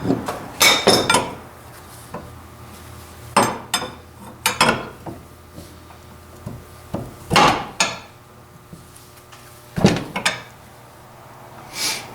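Metal woodworking-vise parts being handled and set down on a workbench. About a dozen separate metallic clanks and knocks come singly and in small clusters, a few ringing briefly.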